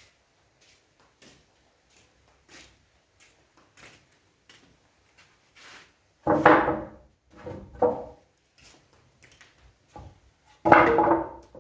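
Hand woodworking on a piece of wood: light scattered tapping, then three louder knocking, scraping strokes of wood with a hollow ring, about halfway through, a second later and near the end.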